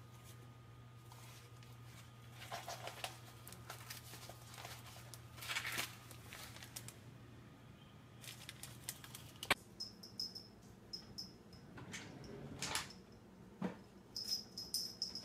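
Faint rustling and crinkling of a sheet of paper as a cat paws and lies on it, over the low steady hum of an electric fan that stops about halfway through. In the second half come scattered knocks and thumps of a cat jumping about cabinets, with a few short high chirps near the end.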